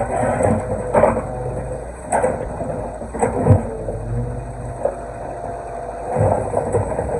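Excavator engine running steadily while stones knock and scrape in irregular bursts about a second or more apart, as the excavator works the wall.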